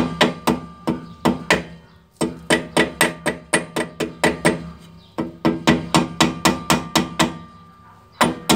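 Hammer tapping rapidly on the cotter pin of a rear wheel hub's castle nut, bending its legs over to lock the nut after the bearing play has been adjusted. The light metal strikes come about four a second in three short runs, with one more strike near the end, over a faint metallic ring.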